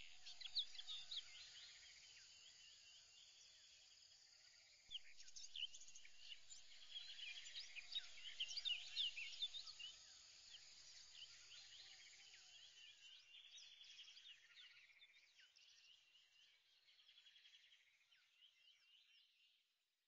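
Faint birdsong: many quick, high chirps overlapping in a dense chorus. It grows louder about five seconds in, then thins and fades out near the end.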